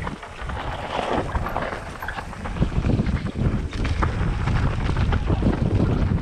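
Wind buffeting the microphone over the rattle and crunch of a mountain bike riding fast down a rough dirt trail, with many small knocks as it goes over bumps and roots.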